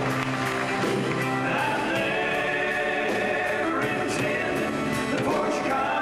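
Live country music: a band with electric guitars and drums playing while male voices sing in close harmony.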